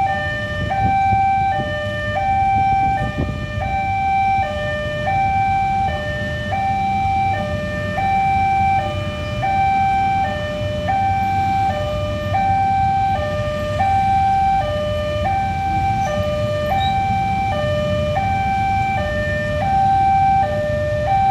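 Electronic railway level-crossing alarm sounding continuously, a two-tone signal stepping between a higher and a lower note about every half second, warning that a train is approaching. A low rumble of road traffic runs underneath.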